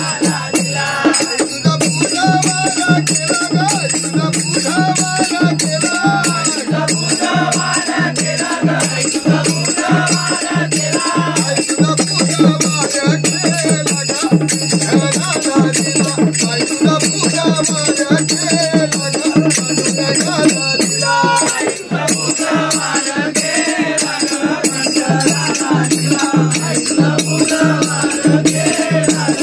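A group of men singing a Hindu devotional bhajan together, accompanied by a hand drum and small brass hand cymbals (manjira) struck in a steady, rapid rhythm.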